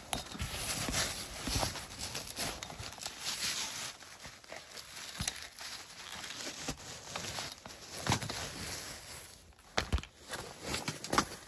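Handling noise: jacket fabric rustling and rubbing over the microphone, with scattered knocks and scrapes as the camera is jostled, and a few sharper knocks near the end.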